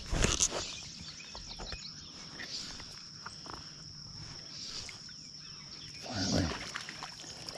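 A steady, high-pitched drone of insects from the wooded riverbank. About a quarter second in, a loud rustle as the angler's sleeve sweeps across the chest-mounted camera's microphone during a cast. Near the end, a man gives a short low grunt that falls in pitch.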